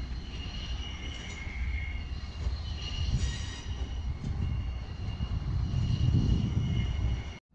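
Norfolk & Western 611, a J-class 4-8-4 steam locomotive, approaching at a distance: a low, uneven rumble with thin, high-pitched squealing from the wheel flanges on the curve. The sound cuts off abruptly near the end.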